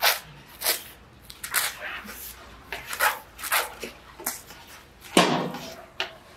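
Woven plastic sack rustling and crinkling in short irregular bursts as it is gripped and worked open, with a louder, heavier scuff about five seconds in.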